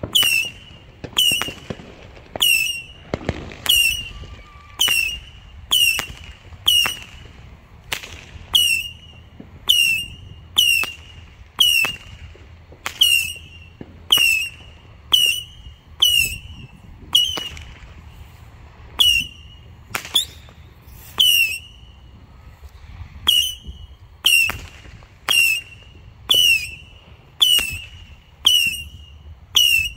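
100-shot Saturn missile battery firing in steady succession, about one shot a second, each missile going off with a short whistle and a sharp crack.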